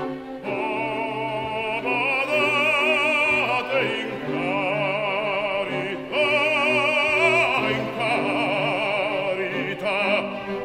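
Operatic baritone singing long held notes with a wide vibrato, accompanied by an orchestra.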